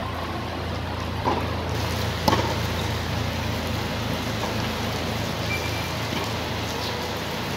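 Tennis ball struck by racquets during a doubles rally: two sharp hits about a second apart, with fainter ones later, over a steady hiss.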